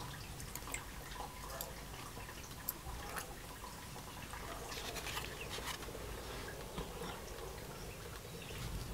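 Faint, scattered light clicks and taps of small metal pieces, copper strips and a steel spoon blank, being handled and set down on a metal work surface, with a small cluster of clicks about five seconds in, over a steady low background rumble.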